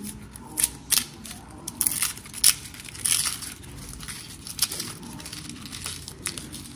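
Irregular crinkling, crackling and tearing of food being peeled by hand, with a dozen or so sharp crackles scattered through.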